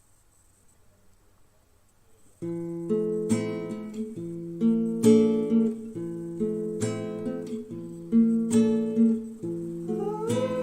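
Near silence, then about two and a half seconds in, background music of strummed acoustic guitar chords begins. A humming voice joins the melody near the end.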